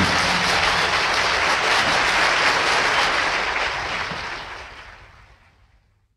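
Audience applauding at the end of a song in a live concert recording, steady at first, then fading out to silence over the last two seconds.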